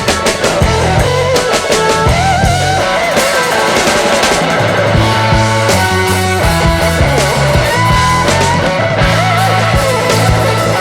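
Instrumental music: a bass line moving in held notes under regular drum hits, with a lead melody that wavers in pitch above.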